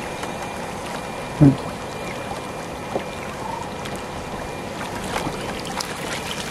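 Pond water swishing and splashing as a bamboo-framed hand net is swept through it and lifted out near the end, over a steady faint hum. A short louder low sound comes about a second and a half in.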